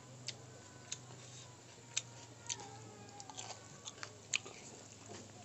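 Close chewing while eating rice and noodles by hand, with a string of short sharp mouth clicks and smacks at irregular intervals.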